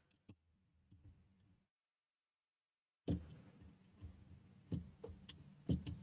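Faint clicks and light taps of a small circuit board being handled and set into a PCB holder, with a few sharper clicks in the second half. The sound drops out completely for about a second and a half in the middle.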